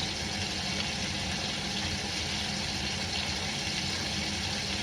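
Chicken legs sizzling steadily in hot oil in a Dutch oven as they sear.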